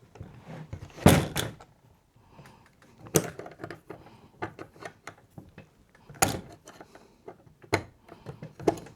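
Irregular clicks and knocks of pliers and small reel parts being handled as a section of a fencing reel is unscrewed, the loudest clatter about a second in.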